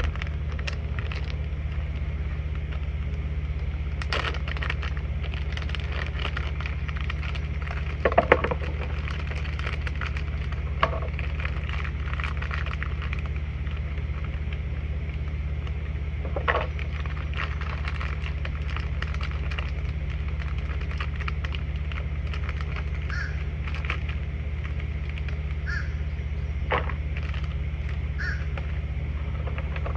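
Crackling and clicking of the switch kit's small wires and connectors being handled out of their plastic bag, with a sharper burst of clicks about eight seconds in. A steady low hum runs underneath. A crow caws several times near the end.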